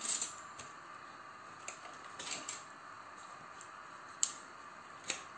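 Ground onion paste frying softly in oil in a non-stick pan, a steady low sizzle, with a few light clicks and scrapes of a plastic spatula against the pan; the sharpest click comes a little past four seconds in.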